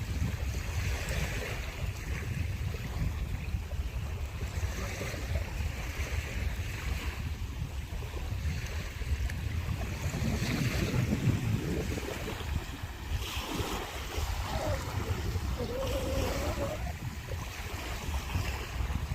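Wind buffeting the microphone with a steady low rumble, over the wash of sea waves. A faint wavering tone comes through for a couple of seconds near the end.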